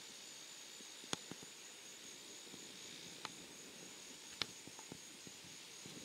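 Quiet outdoor ambience: a faint steady hiss with a thin, high-pitched whine underneath, broken by several short sharp clicks, the loudest about a second in and again after about four seconds.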